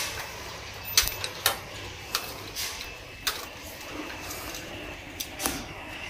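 A handful of sharp clicks and taps at irregular intervals, about five in all, over a steady low background.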